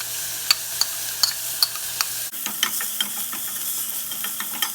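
Onion and garlic sizzling as they fry in oil in a pot, with a utensil clicking against the pot every fraction of a second as they are stirred. The sizzle changes abruptly about halfway in.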